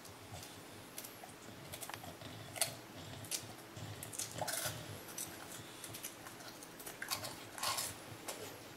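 English bulldog crunching and chewing a bite of ice cream cone with its mouth open: a string of irregular short crackly crunches and wet smacks.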